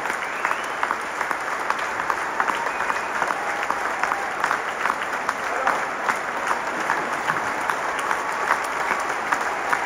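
Large concert audience applauding, with dense, steady clapping throughout.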